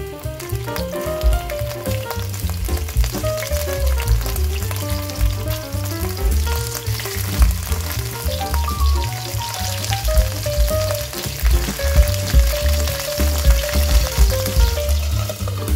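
Tawilis, small freshwater sardines, sizzling as they deep-fry in hot oil in a pot. The sizzle grows fuller about halfway through as more fish go into the oil, over background music with a melody and bass line.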